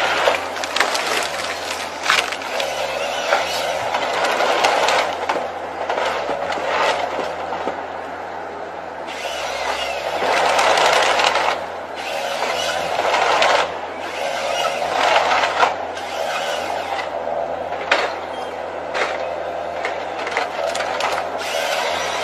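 An engine-driven tree-cutting machine running and cutting wood: a steady engine hum under loud surges of cutting noise every few seconds, with sharp cracks of wood here and there.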